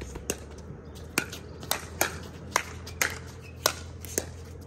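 Pickleball rally: about eight sharp pops of paddles striking the plastic ball and the ball bouncing on the court, roughly two a second.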